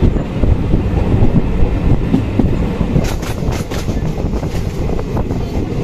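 Moving Indian Railways passenger train heard from an open coach window: a steady rumble of wheels on the track. From about halfway through, a quick, irregular run of clicks comes in as the wheels cross rail joints.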